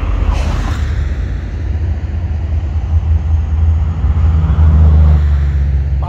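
Steady low rumble of passing highway traffic, swelling about four and a half seconds in as a vehicle goes by.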